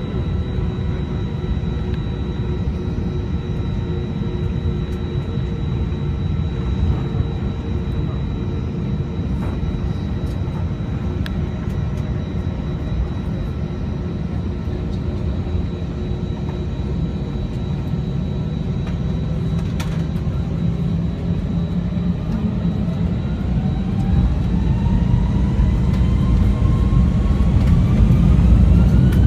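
Airliner jet engines heard from inside the cabin, running steadily at low power with a thin, high, steady whine. About three-quarters of the way through they spool up for takeoff: rising tones and a steady climb in loudness.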